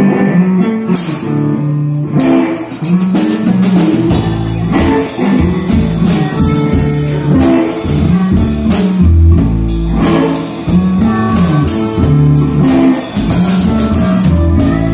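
Live band playing electric guitars, electric bass and drum kit, with a steady drum beat; the deep low end comes in about four seconds in.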